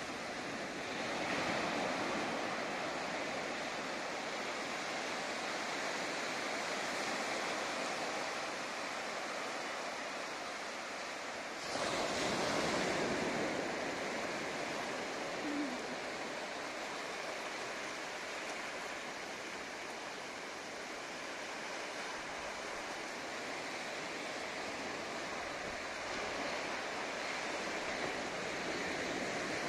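Small ocean waves breaking and washing up a shallow sandy beach: a steady surf hiss that swells briefly about a second in and again, more loudly, near the middle.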